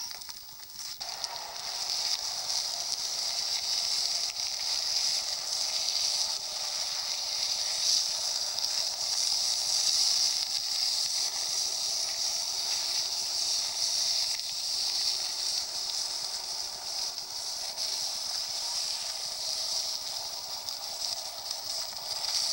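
Steady hissing, scraping travel noise of a golf cart towing a sled over an icy road, swelling up about a second in and then holding steady.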